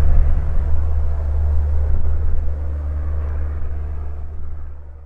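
Steady low drone of a Reims/Cessna F172N Skyhawk II's four-cylinder piston engine and propeller in flight, fading out near the end.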